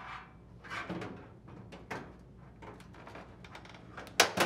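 Sheet-metal dryer front panel being handled and set onto its mounting tabs: light scrapes and rattles of metal against the cabinet, then a sharp metallic knock near the end.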